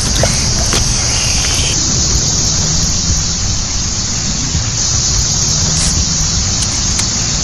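A dense chorus of periodical cicadas: a loud, steady high-pitched buzz with a low rumble underneath.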